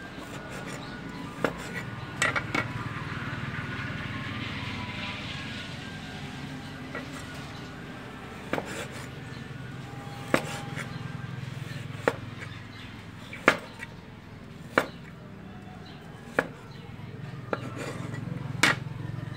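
Large kitchen knife chopping raw meat on a wooden cutting board: about a dozen sharp knocks of the blade striking the board, spaced irregularly a second or two apart, over a steady low hum.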